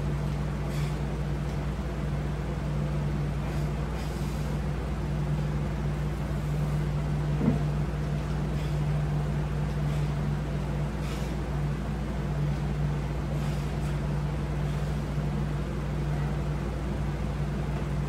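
Steady mechanical hum with a low drone, typical of a window air conditioner running, with a few faint clicks and one slightly louder knock about halfway through.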